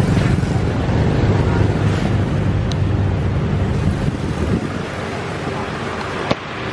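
Low, steady rumble of a vehicle engine and road traffic, easing off about four seconds in, with a single sharp click near the end.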